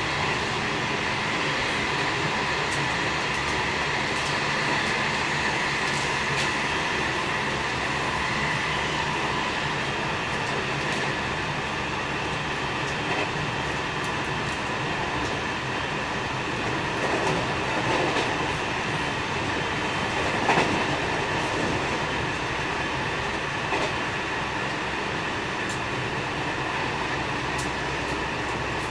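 JR West 207 series 1000 subseries electric train with Toshiba GTO-VVVF traction equipment, running at steady speed. There is continuous rolling noise with a faint steady whine, and a few sharp clicks from the wheels over the rail, the loudest about two-thirds of the way through.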